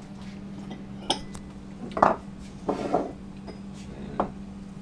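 Metal utensils clinking and knocking against ceramic bowls and a countertop as a spoon is picked out: four or so short clinks, the loudest about two seconds in.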